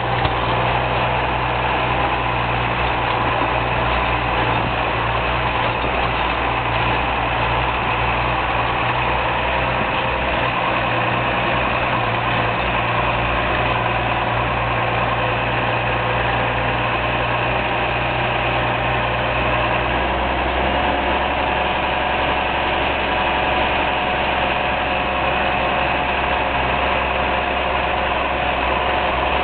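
Case IH 956 XL tractor's six-cylinder diesel engine running steadily while the tractor drives, heard from the driver's seat. Its low note shifts about two-thirds of the way through.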